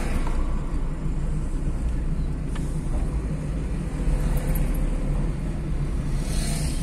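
Steady rumble of a car's engine and tyres heard from inside the moving car's cabin, with a brief swell of hiss near the end.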